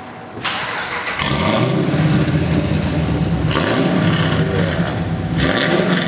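2010 Camaro SS 6.2-litre V8 with long-tube headers, high-flow cats and an X-pipe exhaust starting up about half a second in, then running loudly with two brief surges a few seconds later.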